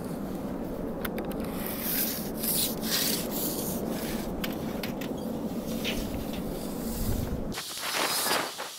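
Measuring and marking 2x4 lumber with a tape measure: scattered clicks and rubbing over a steady low rumble. The rumble cuts off abruptly near the end, leaving scratchy rubbing on the wood.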